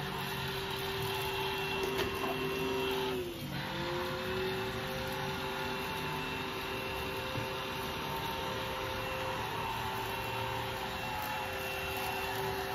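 Dyson cordless stick vacuum running with a steady whine. Its pitch dips briefly about three seconds in and then recovers.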